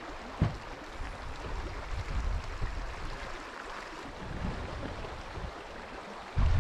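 Wind blowing steadily outdoors, with low buffeting on the microphone. There is a single knock about half a second in, and a strong gust hits the microphone near the end.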